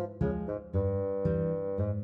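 Background music: plucked acoustic guitar with notes struck in a steady rhythm.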